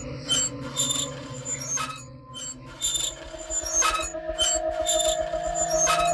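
Dark horror-film score and sound design: sharp ringing clicks about twice a second. About halfway through they are joined by a steady drone over a fast, low pulsing rumble.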